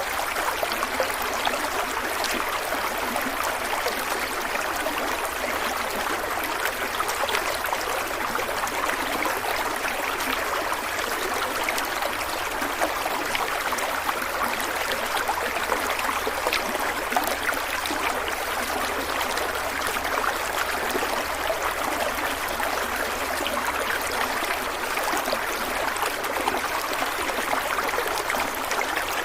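Stream of water flowing steadily, an even rushing babble with fine splashes throughout.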